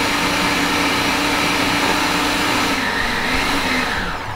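Food processor motor running while it purees pesto, a loud steady whine. Its pitch sags briefly about three seconds in, then it winds down and stops near the end.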